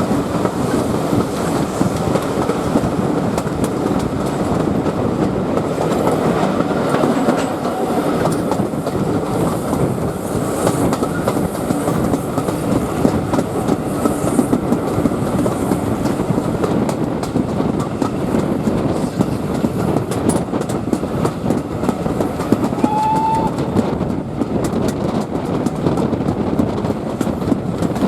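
Passenger train hauled by GWR pannier tank steam locomotives, heard from a carriage while running along: a steady rumble with the clickety-clack of wheels over rail joints. A brief high tone sounds once near the end.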